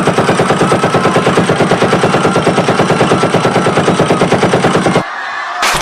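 Sustained fully automatic machine-gun fire as a sound effect, a rapid even stream of about a dozen shots a second. It stops about five seconds in, and a short sharp burst follows near the end.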